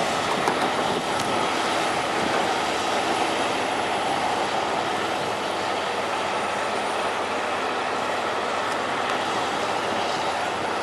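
John Deere 7760 cotton harvester converted to a stripper with dual burr extractors, running: a steady, dense mechanical rush and clatter from the engine and harvesting machinery, with a few light ticks near the start.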